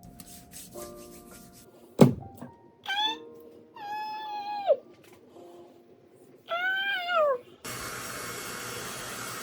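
A house cat meowing three times, the middle meow long and dropping in pitch at its end, over soft background music. A single thunk comes about two seconds in, and a steady hiss fills the last two seconds.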